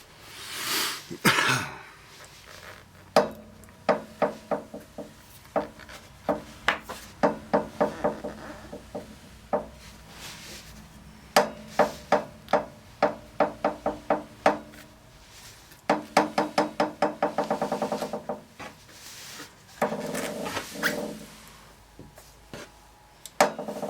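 Repeated sharp pops from the rear drive pulley hub of a 2007 Kawasaki Vulcan 2000 LT. They come in irregular runs, from about two a second up to several a second, each with a short ringing tail. The cause is a missing spacer (rear hub coupling sleeve), which lets the rear pulley flex on its rubber dampers.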